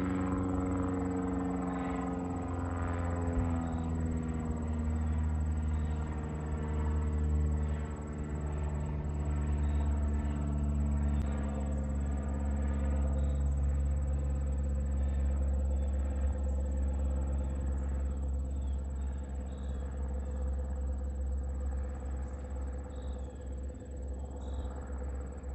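Single-engine propeller light plane flying overhead, its engine drone dropping in pitch over the first few seconds as it passes, then holding a steady low drone.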